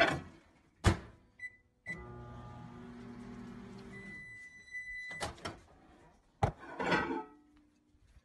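A couple of sharp knocks, then a small appliance's motor humming steadily for about two seconds. A steady high tone follows for about a second, then bursts of rattling clatter near the end.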